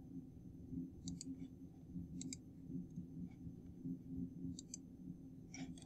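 Computer mouse clicked four times, each click a quick press-and-release pair of ticks, over a faint low steady hum.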